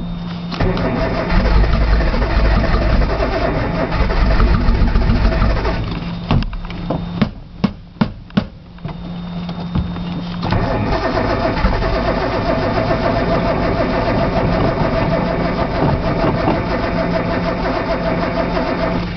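Datsun 280ZX straight-six being cranked over on the starter without catching. Two long spells of cranking with a pause between them, about six seconds in, holding a few sharp clicks.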